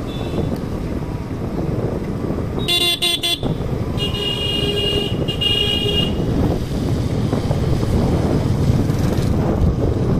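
Steady rumble of a Yamaha MT-15 motorcycle being ridden, engine and wind mixed. A vehicle horn sounds about three seconds in, then honks twice more between about four and six seconds.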